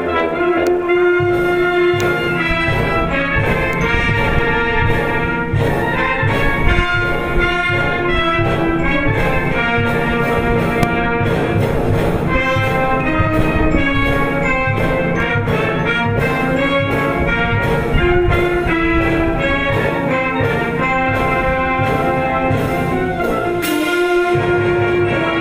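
Background music: orchestral piece with brass over a steady beat.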